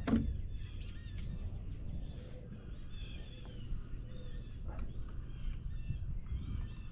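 A single sharp knock right at the start, then birds calling and chirping over a steady low outdoor rumble.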